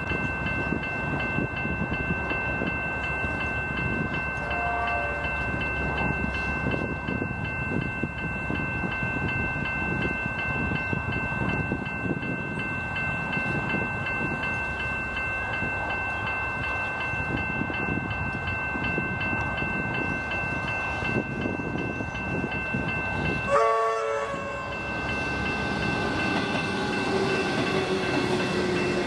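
Railway level crossing bells ringing continuously in rapid strokes. A faint distant train horn sounds about five seconds in, then a loud short blast from the approaching Metro suburban electric train's horn about two-thirds of the way in. The train then runs in past the crossing with a rising rumble and a slowly falling whine as it slows to stop at the station.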